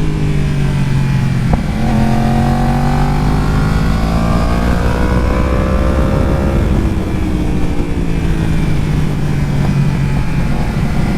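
Yamaha R1's inline-four engine heard onboard at speed, ridden gently on part throttle on a wet track: the note falls, steps up about two seconds in, rises and sags, drops again near the middle, then climbs steadily toward the end. A single sharp click comes about a second and a half in.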